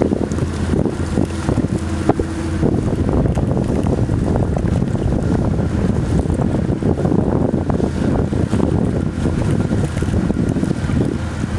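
Wind buffeting the microphone, gusty and loud, over the low steady drone of a passing car ferry's engines. The engine tone is clear for the first couple of seconds, then the wind covers it.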